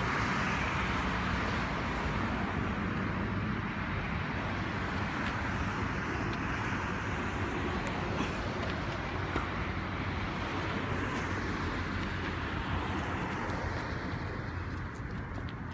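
Steady outdoor road traffic noise, a rushing haze with a low rumble, easing off near the end.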